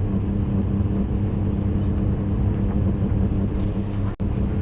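A steady low machine hum, holding one pitch with a few even tones, with a brief dropout about four seconds in.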